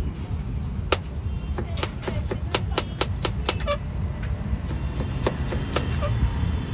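A run of sharp knocks from a kitchen utensil, about four a second for a couple of seconds, some with a short metallic ring, then a few scattered taps. A steady low rumble of street traffic runs beneath.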